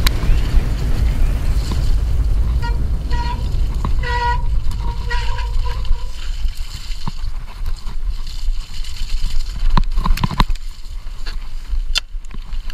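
Mountain bike riding down a snowy, muddy trail: wind buffeting the camera's microphone over a steady low rumble of tyres on the track. A few short high tones sound about a third of the way in, and sharp knocks from bumps near the end.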